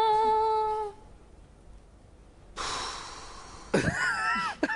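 A woman's unaccompanied voice holds the final sung note for about a second and stops. After a pause comes a sudden loud breathy gasp, then a short burst of laughter near the end.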